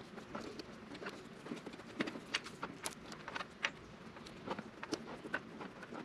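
Faint, irregular clicks and crinkles of hands wrapping electrical tape around a wire and handling the wire.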